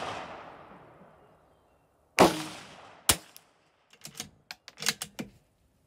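A .22 LR bolt-action rifle (Bergara B14R) fires one shot about two seconds in, and the report rings off over about a second. The fading tail of the previous shot is heard at the start. A sharp click follows about a second later, then a quick run of short metallic clicks, typical of the bolt being worked to chamber the next round.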